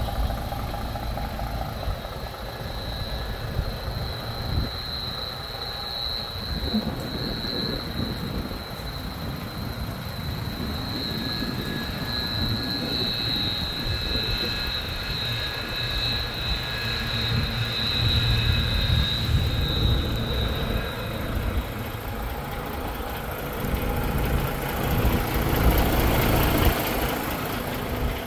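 DAF XF 480 tractor unit's diesel engine idling steadily, with a steady high whine over it for most of the time that fades out about two-thirds of the way through. The sound gets louder and noisier near the end.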